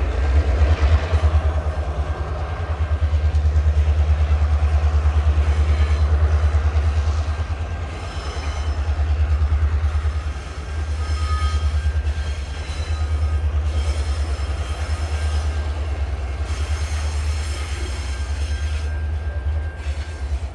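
Heavy coal train rolling past on a curve: a steady, loud low rumble that pulses as the wagons pass. From about eight seconds in, faint high-pitched wheel squeal comes and goes as the wheel flanges rub on the curve.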